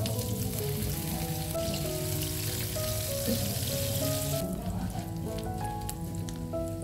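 Dried anchovies sizzling in hot oil in a frying pan as they are dropped in and stirred. The sizzle is loudest at first and eases off a little past halfway, over background music.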